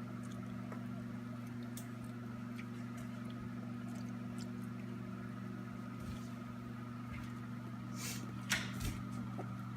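Steady electrical hum with several pitches, with faint scattered ticks and rustles and a few louder short clicks about eight seconds in.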